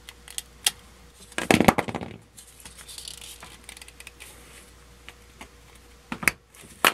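Flush cutters snipping the plastic heat stakes that hold a small plastic side marker light, with a louder crunch about a second and a half in. Soft scratching and clicking of the plastic part being worked loose by hand follow, with two sharp clicks near the end.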